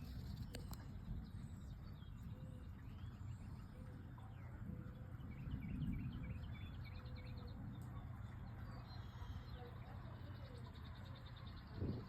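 Small birds chirping, with a quick trill about seven seconds in and another near the end, over a steady low rumble.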